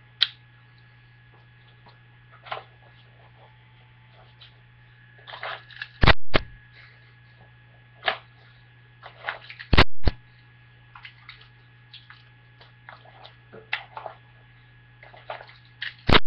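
Crosman 3357 CO2 revolver fired empty, charged with gas but no pellets loaded: three loud sharp pops of released gas a few seconds apart. Lighter clicks and rustles from handling the gun and the leather holster come in between.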